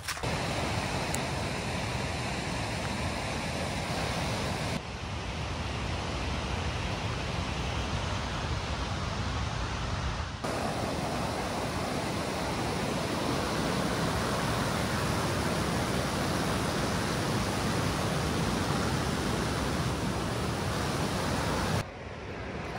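Whitewater rapids pouring over rock ledges, a steady rush of water. It steps in level about five and ten seconds in and turns softer near the end.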